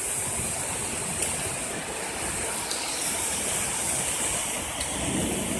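Heavy downpour of rain, a steady even hiss.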